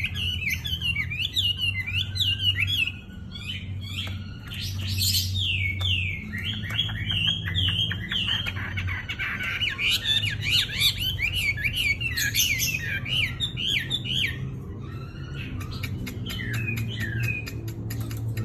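Wambi bird singing energetically in a continuous stream of rapid chirps and whistled notes, thinning out near the end, over a low steady hum.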